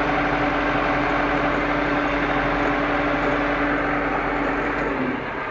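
Tractor engine running steadily, heard from inside the cab, with a steady hum that stops about five seconds in as the sound drops slightly quieter.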